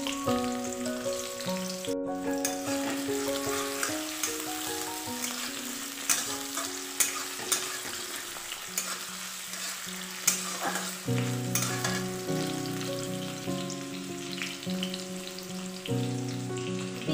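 Sliced onions and garlic sizzling in hot oil in a metal kadai, stirred with a metal spatula that scrapes and clicks sharply against the pan several times. A simple melody plays softly underneath.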